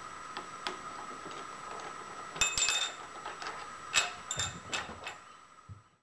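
Light metallic clinks and taps of steel tooling being handled as a milling cutter is taken out of the mill, in two short clusters with a brief ring, over a steady faint high hum.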